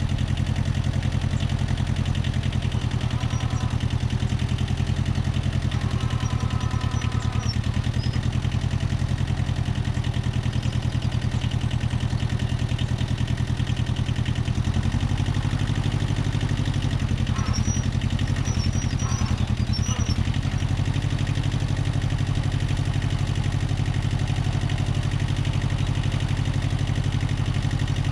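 Zen-Noh ZB6000 compact tractor's diesel engine running steadily, its note changing about halfway through and again a few seconds later.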